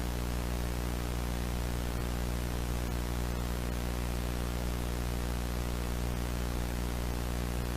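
A steady low electrical-sounding hum with many overtones under an even hiss of static, unchanging in pitch and level.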